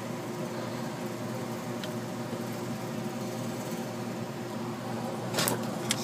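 Geothermal heat pump running steadily, a hum with low steady tones, with its refrigerant charge just completed. A couple of brief handling knocks near the end.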